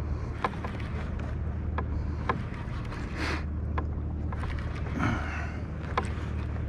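Water lapping against a fishing kayak's hull, with scattered small clicks and knocks and brief splashes about three and five seconds in, over a low wind rumble on the microphone.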